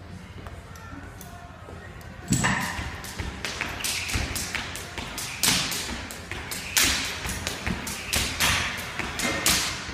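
Jump rope turning fast for double-unders, starting about two seconds in. The rope slaps the rubber gym mat and whips through the air in a quick run of strikes, with her feet landing between them.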